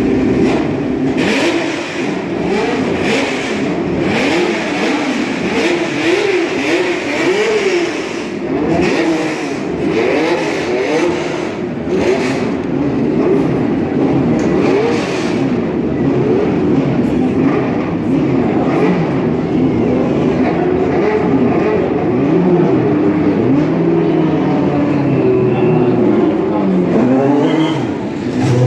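Cosworth DFV V8 engines of 1970s Formula One cars, blipped and revved up and down at low pit-lane speed, the pitch rising and falling constantly. Near the end the engine note settles to a steadier, lower idle.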